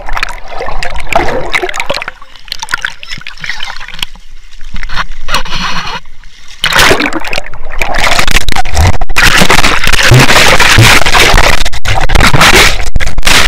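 Water splashing and sloshing around a camera dipping in and out of the sea, then, about seven seconds in, a loud steady rush of water and spray as the inflatable banana boat is towed along.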